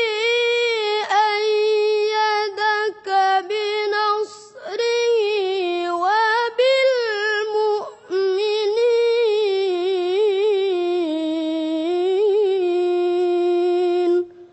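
A high voice reciting the Quran in a melodic, ornamented chanting style: long drawn-out phrases with wavering turns and a few short breath pauses, stopping suddenly near the end.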